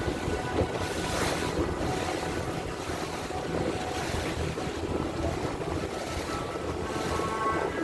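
Wind buffeting the microphone aboard a motor boat under way at sea, over a steady low engine rumble and rushing water.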